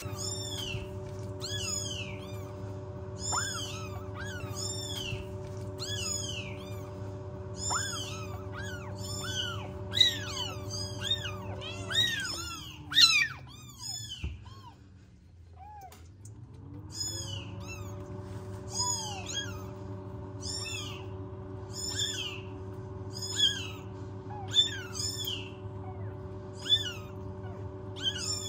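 Newborn kittens mewing, high thin cries repeating about once a second, some louder than others. Under them runs a steady low hum that winds down and fades out around the middle, then winds back up and returns.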